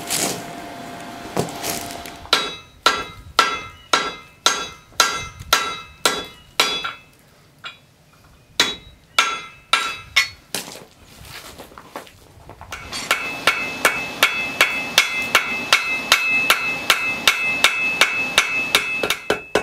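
Hand hammer striking a red-hot horseshoe rasp on a steel anvil, flattening it into an adze blade. The ringing blows come in runs: about two a second at first, a short pause, then from about two-thirds of the way in a faster run of about three a second with a brighter ring.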